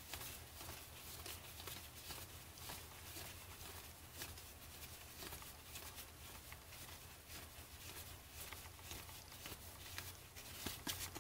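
Football trading cards being flipped through by hand, a steady run of soft flicks and slides of card stock over a low steady hum.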